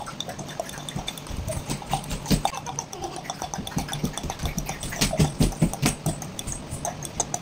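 Small children growling and roaring as pretend tigers and lions, over short clicks and knocks on a tiled floor.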